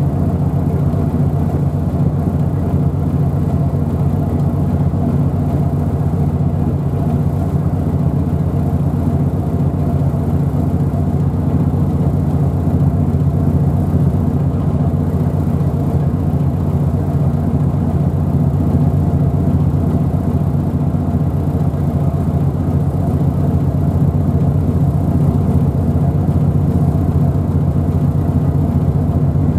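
An engine running steadily: a low, even rumble with a constant hum and no change in level.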